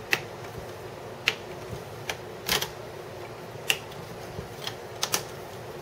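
Plastic clips of a Dell XPS 17 (L702x) laptop's screen bezel snapping loose as the bezel is pried off the display: a string of sharp little snaps at irregular intervals, a couple of them in quick pairs.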